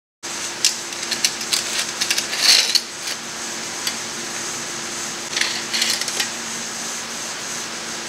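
Handling of a steel tape measure against a brake hub and rotor on a plywood board: scattered metal clicks and rubbing, busiest in the first three seconds with a brief scrape about two and a half seconds in and a few more clicks near the middle, over a steady low hum.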